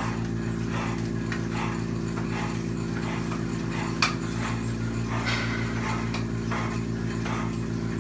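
Steady machine hum under a regular beat of soft strikes about twice a second, with one sharp click about four seconds in.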